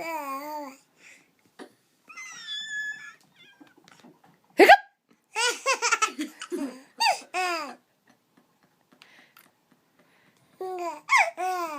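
High-pitched laughter in several bouts, with a brief squeal, broken by one sharp, loud hiccup about five seconds in.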